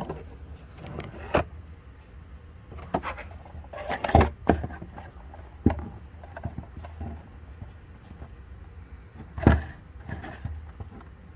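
A cardboard trading-card box being handled: scattered knocks, taps and rustles, the loudest about four seconds in and again near nine and a half seconds, over a steady low hum.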